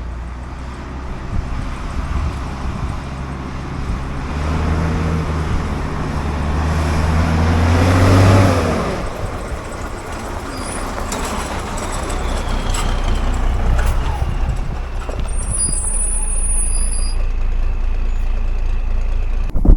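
5-ton military truck's diesel engine running under way, its pitch climbing to a peak about eight seconds in and then dropping back. After that comes a steady rumble and road noise.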